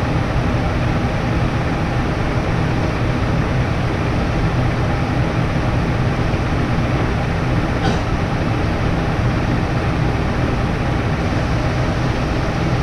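Steady machine drone, a low hum with hiss above it that does not change, with one faint tick about eight seconds in.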